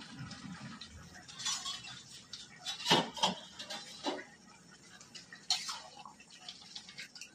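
Metal lid lifted off an aluminium kadai and set down on the gas stove, then a metal spatula stirring in the pan: a few sharp metal clanks and clinks, the loudest about three seconds in.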